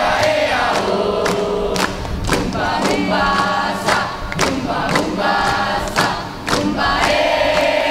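Large mixed choir of men and women singing together in long held notes, with sharp hand claps landing in time with the song.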